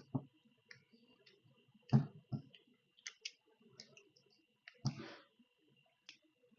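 Scattered clicks and knocks of small parts and tools being handled on a workbench, the loudest about two seconds in and a short scrape about five seconds in, over a faint steady high-pitched whine.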